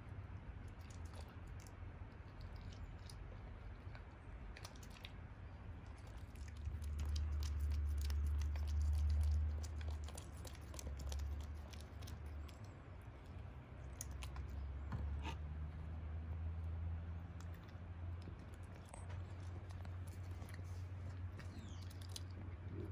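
A masked palm civet chewing ripe melon: a run of small irregular clicks and smacks from its eating. Underneath is a low steady hum that grows louder for several seconds in the first half.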